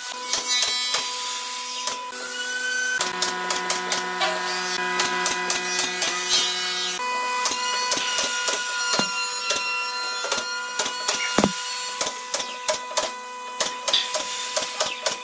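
Nail gun firing shot after shot into pine boards, a sharp snap each time, irregularly spaced and sometimes in quick runs. A steady hum runs underneath, with a deeper hum added from about three to seven seconds in.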